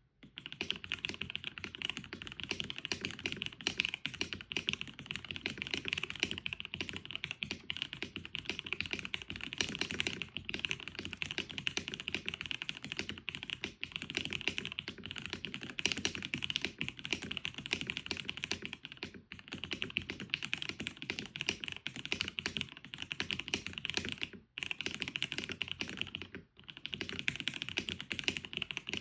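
Fast continuous typing on a Neo65 mechanical keyboard with lubed, filmed Gateron Milky Yellow linear switches on a POM plate with case and plate foam, and PBT keycaps: a dense stream of deep keystrokes with short pauses now and then.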